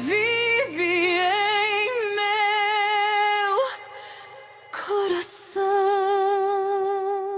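Solo singing voice holding long notes with a wide vibrato over faint accompaniment. It breaks off about three and a half seconds in, then returns on one long held note near the end.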